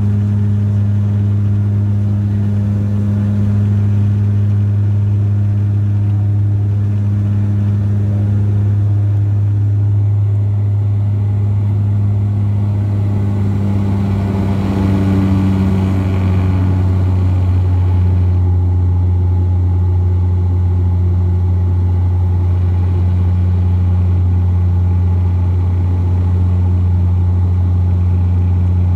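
Bombardier Q400's Pratt & Whitney PW150A turboprop and propeller droning steadily in the climb after takeoff, heard inside the cabin beside the wing as a loud, deep hum. About halfway through, the hum drops slightly in pitch.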